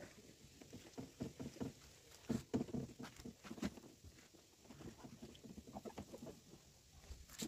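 Hands scrubbing and wiping the wet plastic body of a TVS Ntorq scooter during a wash: a run of short, irregular rubbing strokes, loudest about two and a half seconds in.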